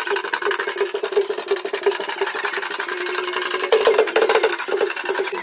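Lively instrumental music: quick repeated pitched notes, with one note held a little past three seconds in, over rapid percussion.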